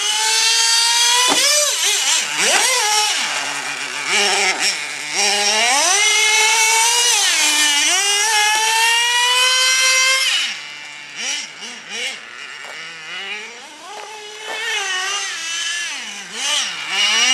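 Gas-powered RC truck's small engine revving up and down with the throttle, its pitch rising and falling again and again. About ten seconds in it drops back to low revs for several seconds, then picks up again near the end.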